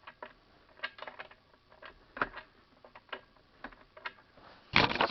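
Scattered small clicks and taps of metal engine parts and hand tools being handled during reassembly of a small engine, with a louder clatter near the end.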